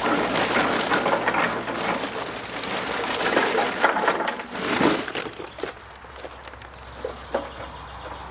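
Fuel being loaded into a charcoal grill: a dense crunching clatter of charcoal and wood pieces for about five seconds, then a few scattered knocks.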